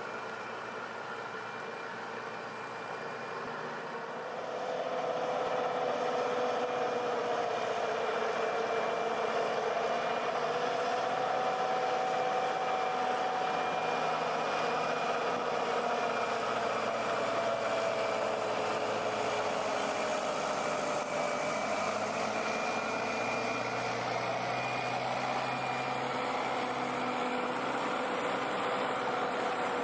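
Heavy diesel engine running steadily; it gets louder about four seconds in, and its pitch wavers slowly up and down after that.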